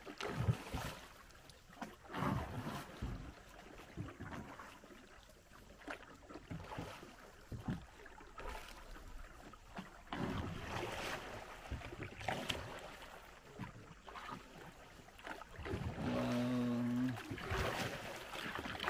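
Wooden paddles stroking and splashing in the water beside wooden dugout canoes, in irregular strokes every second or two. A brief low steady hum comes near the end.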